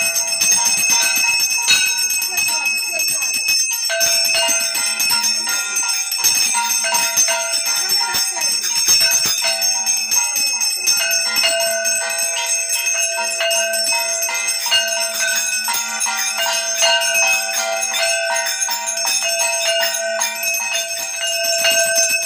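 Hand-held puja bell rung continuously during aarti, a rapid, unbroken jangling with many overlapping ringing tones.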